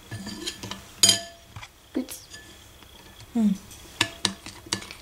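Metal spoon stirring thick chocolate batter in a bowl, clinking against the bowl several times; the loudest clink comes about a second in.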